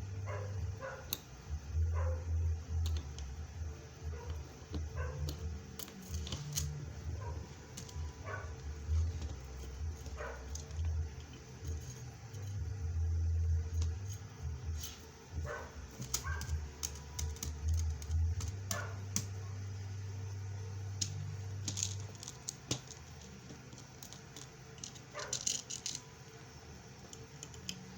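Bead rivet machine clicking at irregular intervals as beads are pressed onto a chiffon scarf, over a low hum.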